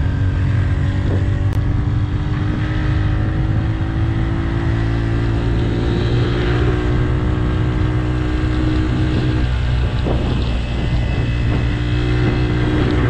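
Motorcycle engine running steadily while riding, its note shifting slightly about five seconds in and again near ten seconds, over a steady rush of wind and road noise.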